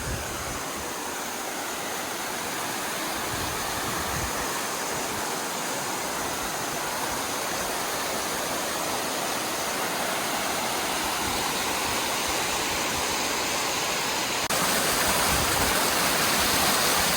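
Waterfall rushing steadily, getting gradually louder, with a sudden step up in level near the end.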